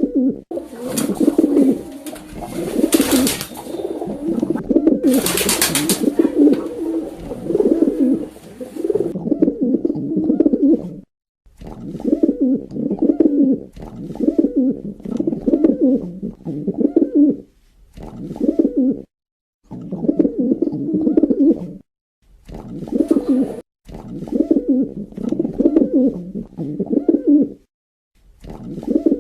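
Pigeon cooing over and over in bouts of a second or two, with short pauses between them. Two short, loud noisy bursts come about three and five seconds in.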